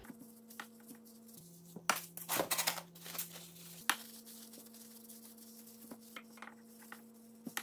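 Paper shop towels rustling and wiping against a grease-packed CV joint, with a cluster of soft crinkles and scrapes about two to three and a half seconds in, over a faint low hum.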